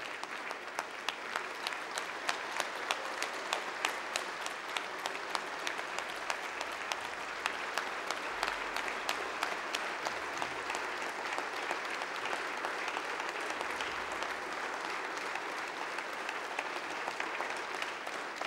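A large audience applauding, a dense, steady wash of clapping with individual sharp claps standing out.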